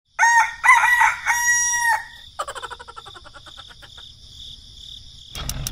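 A rooster crows one long cock-a-doodle-doo, followed by a fast rattling run of short notes that fades out. Near the end a low hum with clicking starts.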